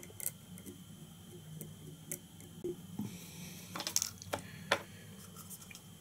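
Faint scattered clicks and light taps of small fly-tying tools being handled at the vise, with a cluster of sharper ticks a little before the end, over a faint steady low hum.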